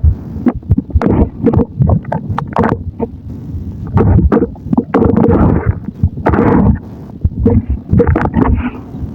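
Thick wet mud paste squelching and gurgling in an irregular string of short, wet glops.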